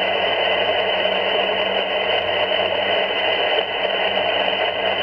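Xiegu G90 HF transceiver tuned to a quiet 40-metre channel: a steady rush of band static, muffled with no high end, and a faint low hum under it.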